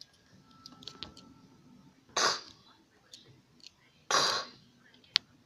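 Two short coughs from a person, about two seconds apart, with faint handling clicks around them and one sharp click near the end.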